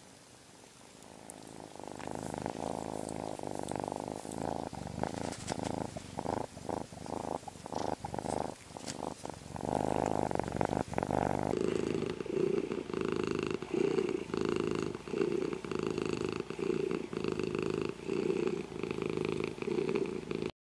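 Domestic cats purring close up: first a ginger kitten's purr, starting about a second and a half in, then after an abrupt change about eleven seconds in, a black cat's purr pulsing in a regular rhythm about once a second.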